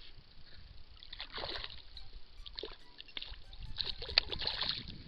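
Water splashing and sloshing in irregular bursts as a hooked bass thrashes at the surface while it is played on the line, with a few sharp clicks near the end.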